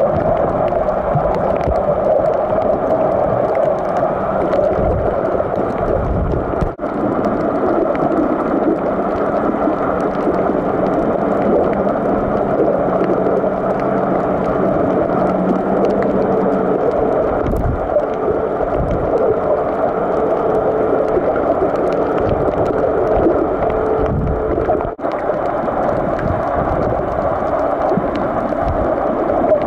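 Steady muffled water noise picked up by a camera filming underwater, with faint wavering tones that come and go. The sound drops out briefly twice, about seven seconds in and again about twenty-five seconds in.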